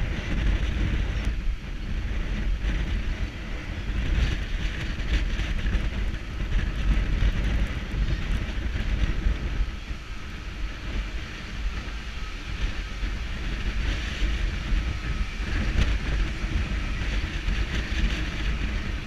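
Strong sea wind buffeting the microphone, a heavy, gusting low rumble with hiss above it, with a faint steady whine underneath. The wind noise drops sharply near the end as the wind is cut off.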